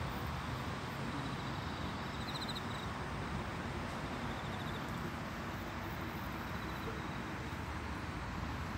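Steady evening ambience of distant city traffic, with crickets trilling faintly now and then.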